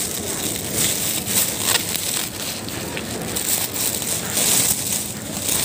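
Supermarket background noise: a steady hiss with a few faint clicks and crackles.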